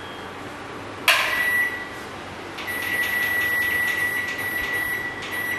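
Microwave convection oven's control panel beeping as it is set to preheat to 200 degrees: one sharp high beep about a second in, then a steady high beep lasting about three seconds with button clicks through it.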